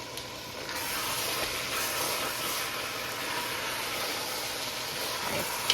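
A pot of chili sizzling on the stove: a steady hiss that grows louder about a second in.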